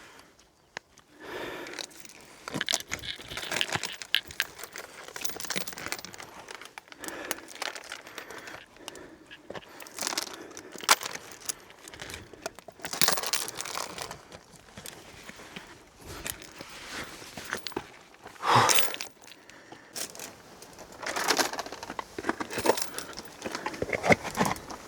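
A hiker's footsteps scraping and crunching on a steep, rocky mountain descent, mixed with rustling of clothing and pack, in irregular bursts with sharper clicks.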